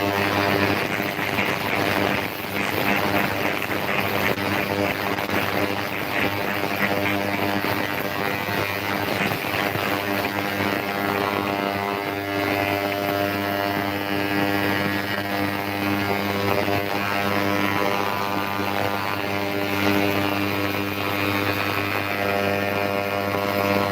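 Electric motor of a workshop machine running steadily with a constant, even hum.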